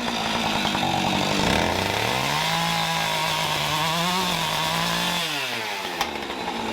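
Chainsaw cutting into a wooden log: the engine runs up in pitch a little under two seconds in, holds high under load for about three seconds, then drops back a little after five seconds.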